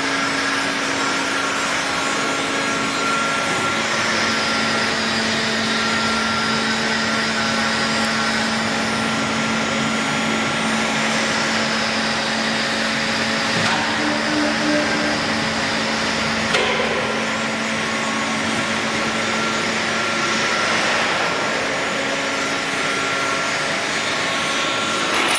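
FICEP P803A CNC plate punching machine running steadily with a constant low hum and a higher whine. A single sharp knock comes about two-thirds of the way through.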